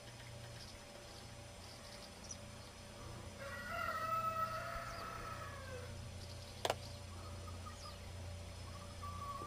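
A rooster crowing once, one drawn-out crow of about two and a half seconds that sags in pitch at the end. About a second later there is a single sharp click.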